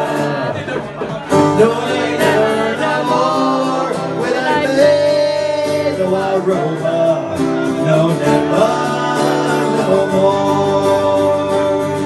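Live folk band playing an Irish drinking song: acoustic guitar strummed steadily while voices sing the chorus.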